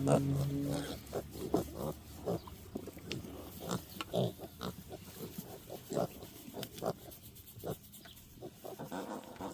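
Kunekune piglets grunting in short, irregular snorts and grunts, several a second. A steady low hum sounds under them for the first second, then stops.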